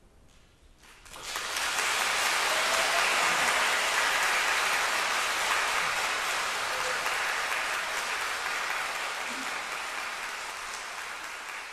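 Audience applauding in a concert hall: the clapping breaks out about a second in, just after the final chord dies away, holds steady, then slowly fades toward the end.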